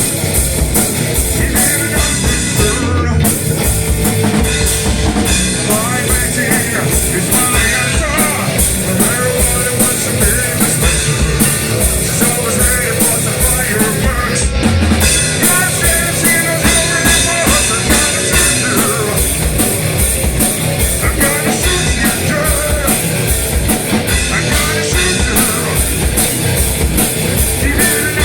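Stoner rock band playing live, steady and loud: electric guitar, bass and drum kit, with sung vocal lines.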